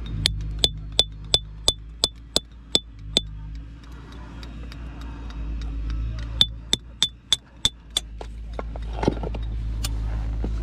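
Hand hammer striking a steel splitting tool held against a layered rock slab, splitting it apart to look for fossils. The strikes are sharp, ringing metal-on-metal clinks, about three a second: nine in a row, a pause, then five more.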